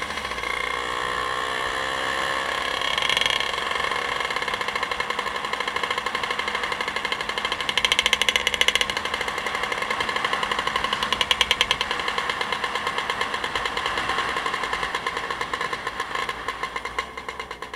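Motorcycle engine running on the road, a steady note with a fast, even pulse, easing off a little near the end.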